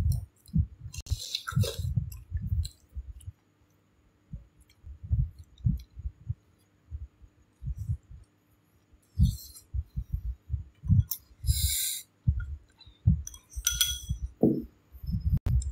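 A person eating from a bowl with chopsticks close to a phone's microphone: dull low thumps of chewing and handling, light clinks, and several short hissing slurps.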